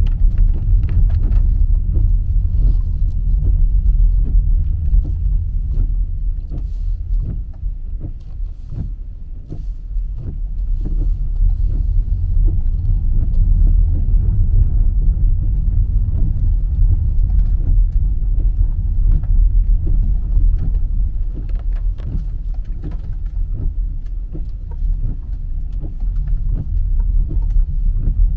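Car driving on a rough mountain road: a steady low rumble with many small knocks and clicks throughout, easing for a moment about nine seconds in.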